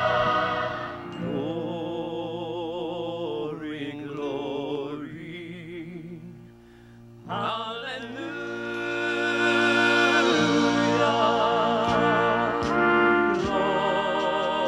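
Music: a singing voice held in long, wavering notes with heavy vibrato over orchestral accompaniment. It dips quietly about halfway through, then comes back in and swells.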